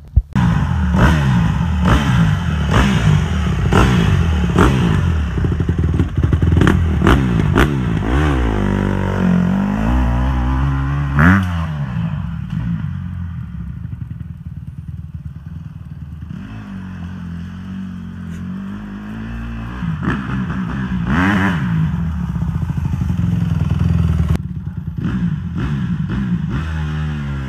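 Small dirt bike engine running and revving, its pitch rising and falling as it rides past, with clattering knocks through the first several seconds and one loud knock about eleven seconds in.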